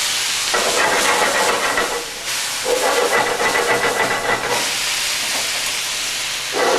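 Pork cutlets sizzling hard in a cast-iron skillet of browned butter and lemon juice, a steady hiss that twice carries a thin whistling note for about a second and a half.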